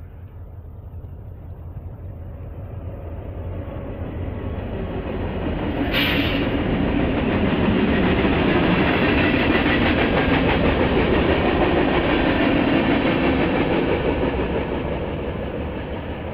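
Union Pacific freight train, two diesel locomotives pulling four freight cars, passing close by. The engines and rolling wheels grow louder over the first six seconds, stay loud, and fade near the end. A sudden sharp noise cuts in about six seconds in.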